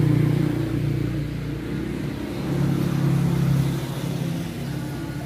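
An engine running steadily with a low hum, rising in level twice and then easing off.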